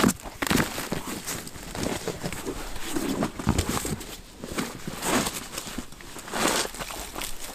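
Foam sleeping mats being handled and laid down: irregular rustling and crinkling with a few light knocks.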